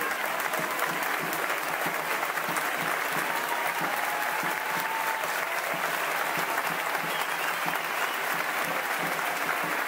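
A large outdoor crowd applauding steadily for a human tower (castell) as its upper tiers are being taken down.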